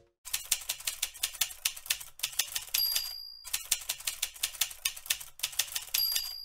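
Typewriter sound effect: two runs of rapid key clacks, each followed by a short ding of the carriage bell, about three seconds in and again near the end.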